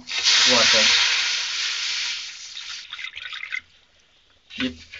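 A cup of water poured into a hot, empty kadhai (wok), hissing and sizzling as it flashes to steam. The hiss is loudest at first and dies away over about three seconds.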